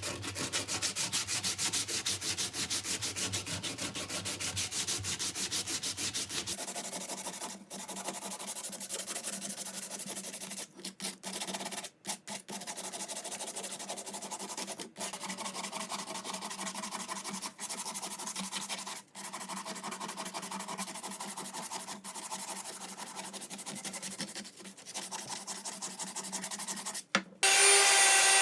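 Sandpaper rubbing on wood in rapid back-and-forth strokes, as a hatchet's wooden handle is sanded, with several short breaks.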